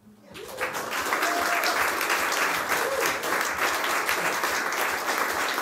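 Audience applauding, starting about half a second in and quickly building to full, steady applause.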